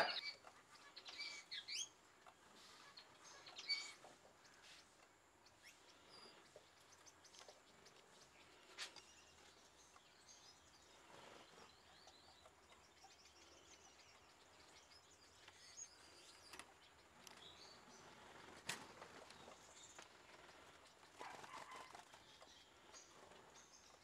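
Near silence with faint, scattered chirps from caged Gouldian finches, mostly in the first few seconds, and a few soft, sharp clicks later on.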